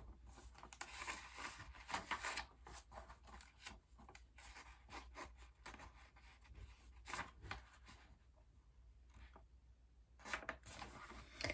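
Faint rustling and light clicks of handling noise, with a few louder rustles near the end.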